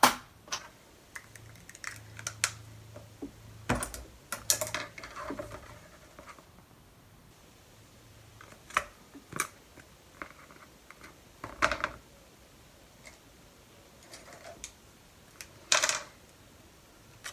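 Scattered clicks, taps and knocks from a handheld Crop-A-Dile hole punch and other craft tools on a cutting mat: the punch clamping through card, and near the end the punched-out scraps being poked out of its jaws.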